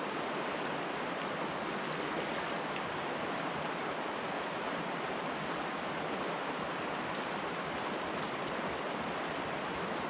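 Steady rush of a shallow river's current running over a gravel and cobble bed.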